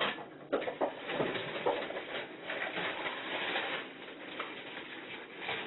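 Clattering and rustling of objects being handled and moved about, with several sharp knocks in the first two seconds.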